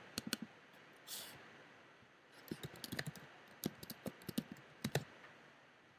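Computer keyboard keys clicking as a name is typed: a few keystrokes at the start, then an irregular run of quick keystrokes from about two seconds in until shortly before the end.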